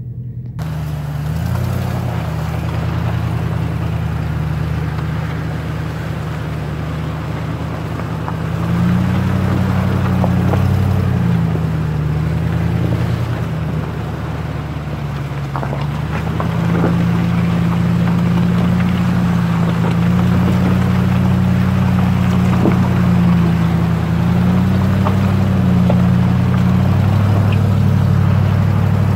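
Pickup truck engine running under load as it drives through deep, soft clay ruts, its revs rising and falling.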